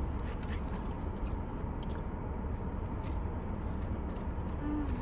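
Steady low rumble of a car interior, with scattered small clicks and paper-wrapper crinkles from people eating burgers and sipping drinks.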